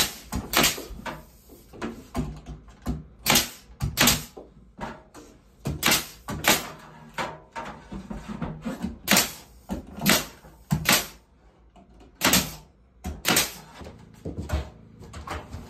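Pneumatic nailer firing nails overhead into wooden ceiling boards: a dozen or so sharp shots at uneven intervals, some in quick pairs.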